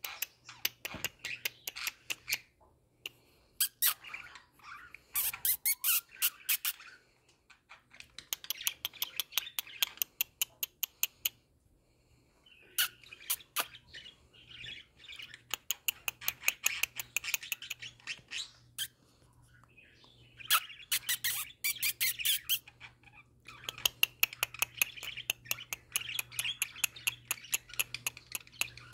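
Pet budgerigars chattering and warbling: bouts of fast clicks and chirps, broken by a few short pauses.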